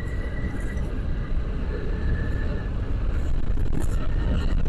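Wind rumble buffeting a helmet-mounted wireless mic on a motorcycle ride, with the bike's engine running underneath. It grows louder about two seconds in as the bike speeds up.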